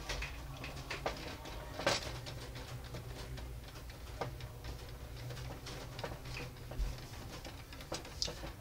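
Pepper grinder being handled as its cap is screwed on and the mill is turned: a run of small, irregular clicks and ticks, with a few louder knocks.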